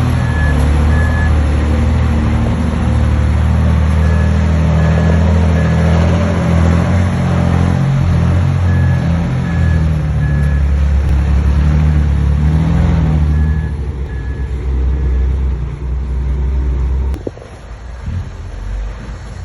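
Heavy diesel construction machinery running under load, with a reversing alarm sounding in short runs of about three beeps every few seconds. The engine eases off about two-thirds of the way through and drops lower near the end.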